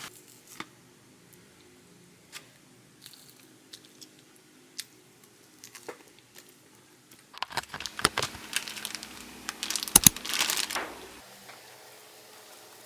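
Scattered light handling clicks, then from about seven seconds in a few seconds of crinkling and tearing, loudest around ten seconds, with some sharp clicks, before it stops about eleven seconds in.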